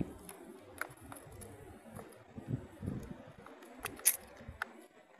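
Light clicks and taps of handling as a small fish is taken off the hook over a small plastic bucket, the sharpest pair of clicks near the end, over a faint low rumble.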